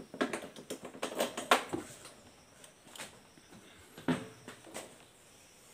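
Handling noise: irregular clicks, knocks and rustles as the phone and the clip-on microphone are moved about, several in the first two seconds and a few more later.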